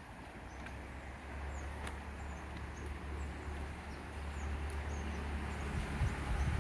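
Wind rumbling on the microphone, stronger near the end, over a steady outdoor hiss, with a few faint high bird chirps.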